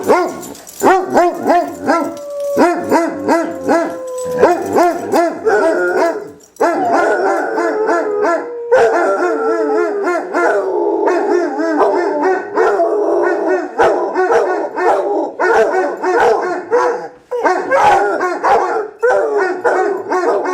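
Two basset hounds howling and baying together in overlapping voices, a fast pulsing 'aroo' with longer drawn-out howls that slide slowly down in pitch. The chorus breaks off briefly twice, about six seconds in and again near seventeen seconds, then starts up again.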